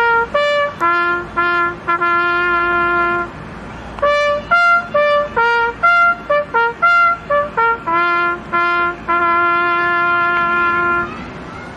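A bugle call sounded on a brass horn, a run of short notes and long held ones on a few pitches, with the longest notes on the lowest pitch. It pauses briefly about three seconds in and ends about eleven seconds in.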